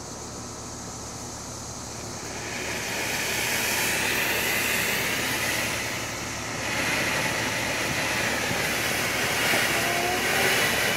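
Ground fountain firework going off: a steady spraying hiss that starts about two seconds in once the fuse burns down, dips briefly around six seconds, then carries on.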